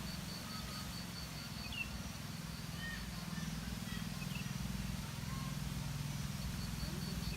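Outdoor ambience: a steady low rumble with scattered faint bird chirps and a faint, high, pulsing insect-like tone.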